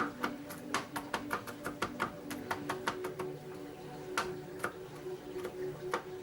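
A steel knife blade chopping garlic on a cutting board: quick, uneven taps, about three or four a second, over a low steady hum.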